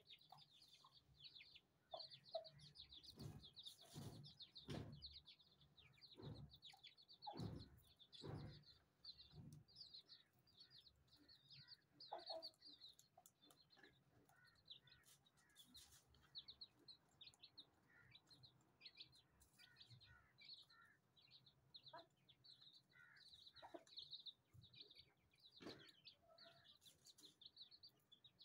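Chicks peeping almost without pause, quick high notes, with occasional low clucks from the chickens. Several soft thumps come in the first ten seconds.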